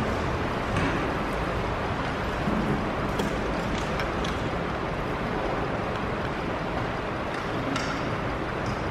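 Steady room hiss with a few faint clicks and knocks as a congregation settles into chairs.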